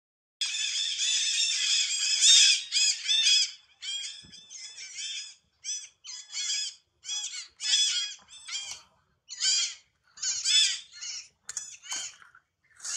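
High-pitched squeaky animal calls: a rapid unbroken run for about two seconds, then a string of short rising-and-falling squeals, about one or two a second.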